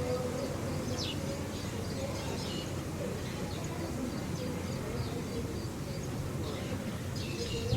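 Steady low background hum with small birds chirping faintly now and then, clustered near the start and the end.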